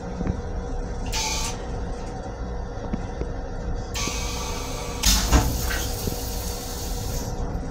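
Low rumble of a Metro-North M7 electric railcar heard inside its restroom, with a steady hum running through it. Short bursts of hiss come about a second in and about four seconds in, and a louder hiss with a thump comes about five seconds in.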